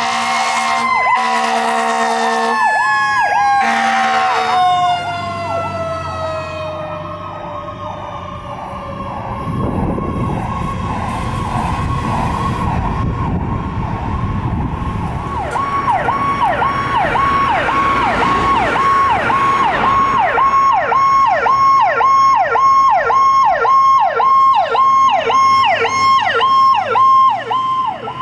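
Fire engine's electronic siren sounding the Powercall tone, a high note that dips quickly and comes back about twice a second, loudest in the second half. Early on there are several short horn blasts and a second siren falling slowly in pitch, and the fire truck's diesel engine rumbles past in the middle.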